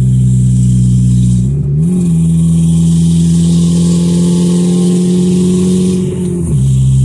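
1997 Audi A4's turbocharged four-cylinder engine droning loudly through an open 2.5-inch dump pipe with no catalytic converter, heard from inside the cabin while driving. A little under two seconds in, the pitch rises quickly and holds steady, then falls back near the end.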